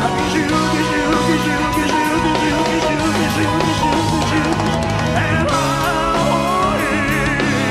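Live rock band playing an instrumental passage: drums with cymbals, bass, keyboards and guitars, with sustained, wavering melody notes over a steady beat.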